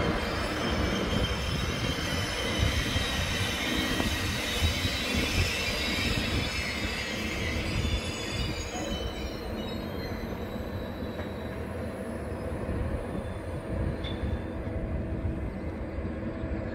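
Passenger train of coaches rolling past: a steady rumble of wheels on the rails, with a high-pitched squeal from the wheels that fades out about halfway through.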